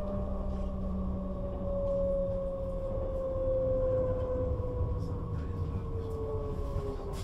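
A Bombardier/Alstom class 422 S-Bahn electric multiple unit running, its traction drive whine falling steadily in pitch as the train slows, over a steady low rolling rumble.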